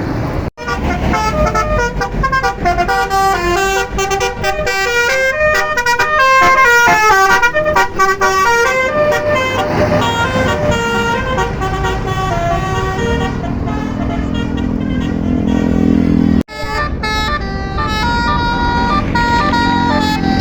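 Tour bus basuri 'telolet' horn, a roof-mounted multi-trumpet melody horn, playing a fast tune of stepped notes. The bus engine rumbles under it near the end, and the sound breaks off for an instant twice.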